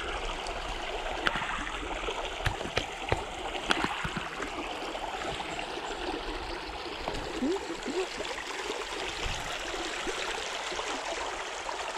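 Shallow creek running and gurgling over rocks around stepping stones, a steady water sound. A few light knocks of footsteps in the first few seconds and again about eight seconds in.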